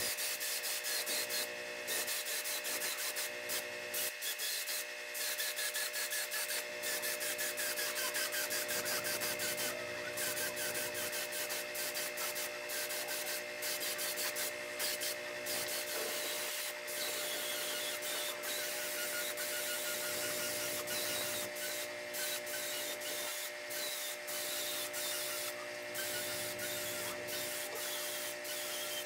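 Pneumatic paint spray gun hissing as it sprays black paint onto metal speaker frames and magnet covers, the hiss broken by many brief pauses. A steady hum of several tones runs underneath.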